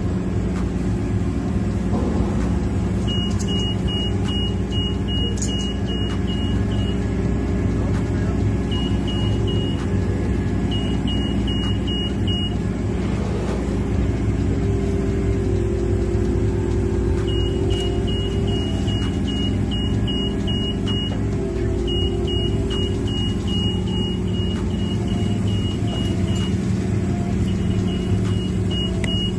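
Heavy diesel construction machine running steadily, its low engine note shifting a little over time, while a reversing alarm beeps in runs of short high beeps, about three a second, stopping and starting several times.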